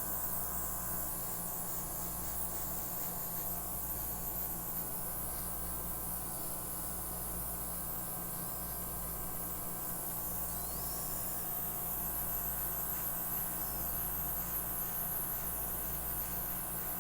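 Small airbrush compressor running steadily: a low motor hum under a constant hiss of air from the airbrush, blowing acrylic paint outward in a flower blow-out pour.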